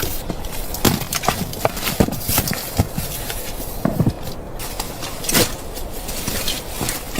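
A series of irregular knocks and crunches, a couple a second, over a steady hiss.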